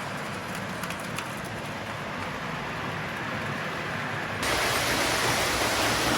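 Several O gauge toy train locomotives running together on tubular metal track, a steady rumble and hiss of motors and wheels on rail. It gets suddenly louder about four seconds in.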